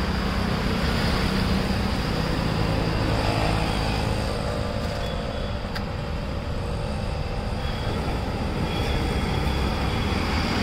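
Steady roadside traffic noise: a continuous rumble and hiss of vehicles passing on the road.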